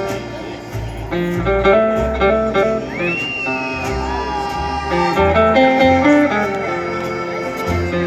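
Live country band playing an instrumental break, with a plucked guitar lead over bass and backing instruments. About three seconds in, a single high whistle-like tone rises, holds and falls away.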